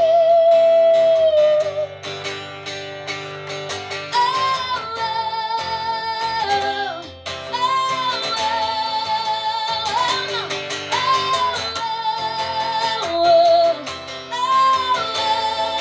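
Live band music: a lead melody of long held, wavering notes over guitar and rhythm section.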